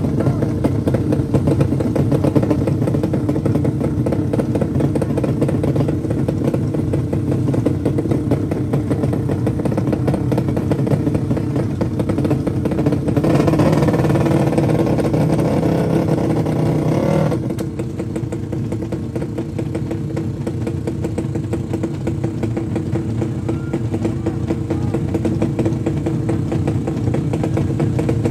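Drag-race motorcycle engines running steadily, with one engine revved harder for about four seconds in the middle, louder and brighter, before settling back.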